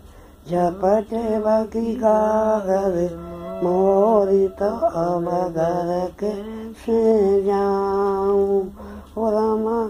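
A woman singing a slow, chant-like song in a single voice, with long held notes and wavering ornaments, broken by brief pauses for breath.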